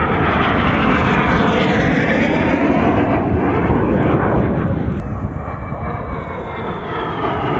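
Jet aircraft passing, a loud steady engine rush whose tone sweeps slowly up and down. A sharp click about five seconds in, after which the sound is slightly quieter for a couple of seconds.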